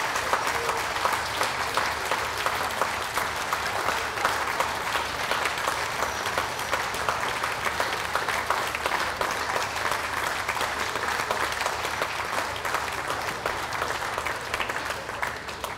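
Audience applauding steadily, a continuous patter of many hands clapping that thins slightly towards the end.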